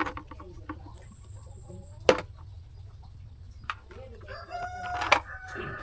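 A rooster crowing, one long drawn-out call starting about four seconds in. Before it come a few sharp clicks and knocks, the loudest about two seconds in.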